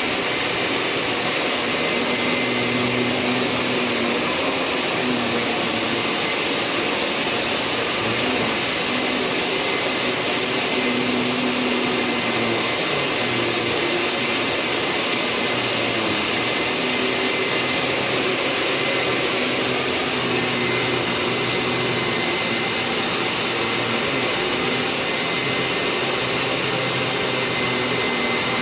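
Hyla water-filter vacuum cleaner running steadily: a rush of air with a steady high whine over it and a lower hum that rises and falls a little.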